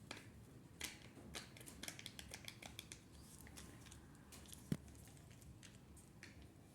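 Small plastic and foil packaging of a Kinder Joy egg being handled: a quick run of faint clicks and crinkles, with one sharper knock about four and a half seconds in.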